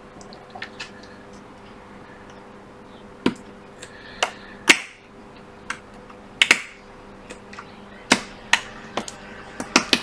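Thin metal pick prying at the metal shield on an iPad Air logic board: irregular sharp metallic clicks and ticks, about a dozen, as the tool catches and works the shield loose, over a faint steady hum.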